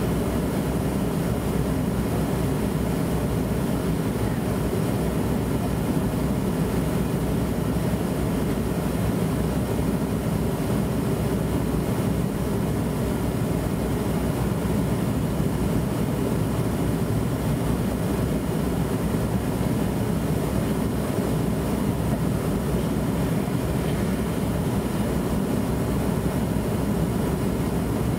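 Steady cabin noise of a Boeing 707 in flight: the drone of its Pratt & Whitney JT3D turbofan engines mixed with airflow rush, unchanging throughout.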